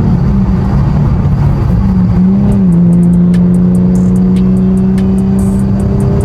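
Nissan 370Z's 3.7-litre V6 engine pulling as the car is driven. Its pitch dips about two and a half seconds in, then climbs slowly and steadily.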